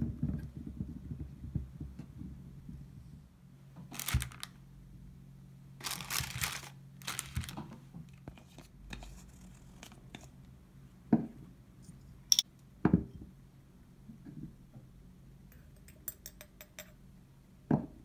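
Kitchen handling sounds on a wooden cutting board: a knife scraping and cutting through raw pumpkin a few times in the first half, then several sharp taps as things are set down, the last a small glass jar placed on the board near the end.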